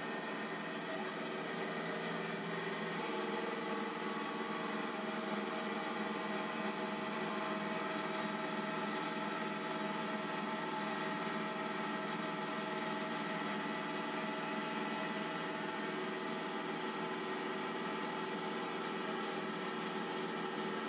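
A boat's engine running steadily under way: a constant drone with several steady tones and no breaks.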